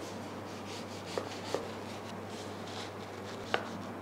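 A kitchen knife cutting through a stack of lightly fried pita bread, with a dry scraping crackle and three sharp taps of the blade on the cutting board, the loudest near the end.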